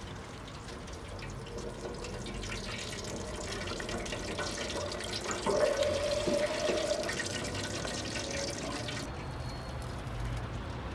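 Breaded hot dogs frying in a deep fryer: the hot oil sizzles and bubbles with a steady hiss that thins out about nine seconds in.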